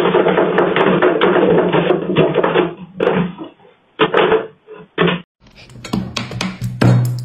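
Large cat exercise wheel spinning fast, a continuous rattling rumble that breaks off after about three seconds into a few short clattering bursts. Near the end a different run of sharp taps and knocks takes over.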